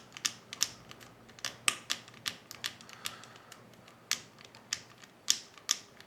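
Combination dials of an Abus Bordo 6100 folding bike lock clicking as they are turned by hand, with irregular sharp clicks about two or three a second: the dials are being worked one by one while feeling for the one that binds.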